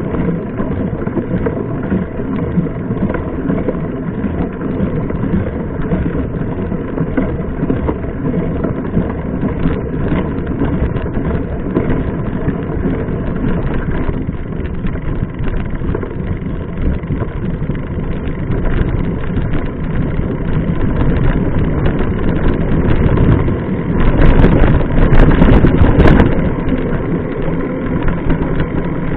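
Wind on the microphone and the steady rumble of a mountain bike being ridden, louder for a couple of seconds near the end.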